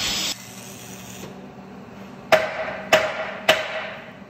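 An angle grinder on steel cuts off just after the start. Then come three sharp hammer strikes on steel, about 0.6 s apart, each ringing briefly.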